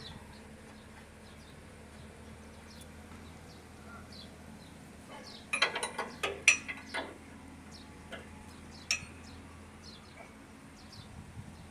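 A quick cluster of sharp metallic clinks about halfway through, then a single clink a little later: a steel spanner knocking against the backhoe's boom and hydraulic hose fittings during a hose change. Under them run faint high chirps and a low steady hum.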